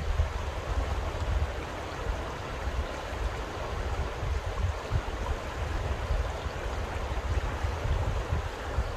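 Shallow creek running over rocks, a steady rushing of water, with a fluctuating low rumble of wind on the microphone underneath.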